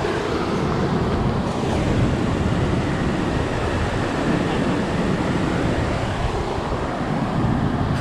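Whitewater river rushing steadily over rocks and boulders.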